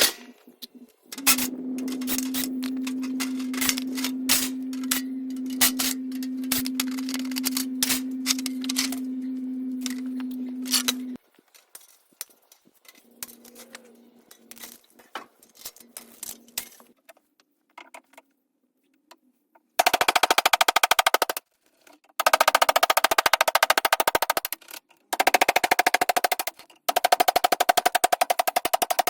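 Handheld power tool used in disassembly: a motor runs steadily with clicking for about ten seconds, then comes several loud bursts of very rapid hammering, like an impact driver or impact wrench working fasteners.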